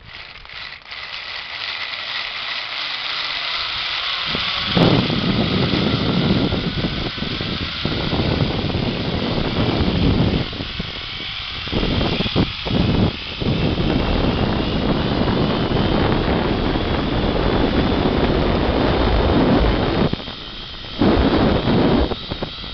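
Zipline trolley pulleys running along the steel cable, a whine that rises in pitch as the ride picks up speed. From about five seconds in, heavy wind buffeting on the microphone covers it, easing off briefly a few times.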